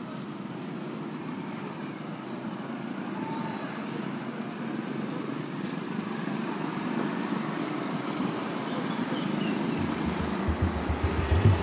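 Steady street traffic noise, the even rumble of passing cars and motorcycles, slowly growing louder. Deep low thumps come in near the end.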